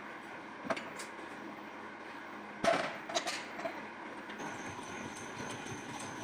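Steady workshop machinery noise with a few sharp knocks, the loudest about two and a half seconds in, and a faint high whine that starts a little after the middle.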